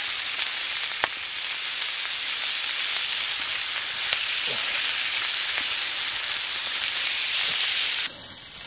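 Strips of pork belly sizzling steadily in a pan over a campfire, with a couple of sharp clicks. The sizzle cuts off suddenly near the end.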